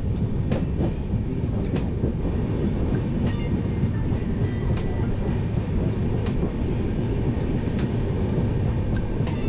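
Mandovi Express passenger train running along the track, heard from aboard: a steady rumble of wheels on rail with scattered sharp clicks.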